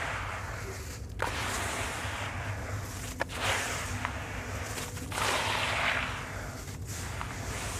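Damp sand-cement mix being crumbled by hand and dropped back into a plastic tub: gritty, crunchy crumbling that comes in waves about every two seconds, each starting with a sharp crack.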